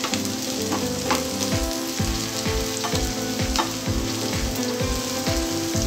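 Sliced onions and green chillies sizzling in oil in a non-stick pan, stirred with a wooden spatula that scrapes the pan now and then. Background music with a steady low beat plays underneath.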